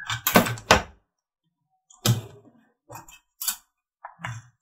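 Toy remote-control jeep's small electric motor and gears whirring in several short bursts as it is driven in stops and starts, three close together in the first second and more scattered later.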